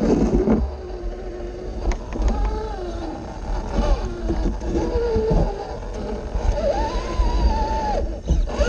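Electric drive motor and geartrain of an Axial SCX6 1/6-scale RC rock crawler, whining in pitch that rises and falls as the throttle is worked on the climb, over a steady low rumble from the chassis picked up by the onboard camera.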